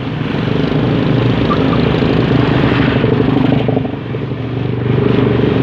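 Small motorcycle engine running at riding speed, with road and wind noise. The engine note eases off about four seconds in and picks up again.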